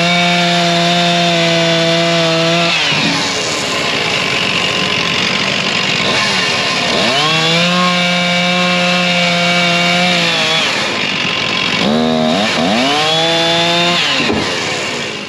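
Stihl two-stroke chainsaw bucking a hedge (Osage orange) log into firewood rounds. The engine revs to full throttle and holds steady through a cut that ends about three seconds in, makes a second cut of about three seconds from about seven seconds in, then gives a quick blip and makes a short third cut near the end before dying away.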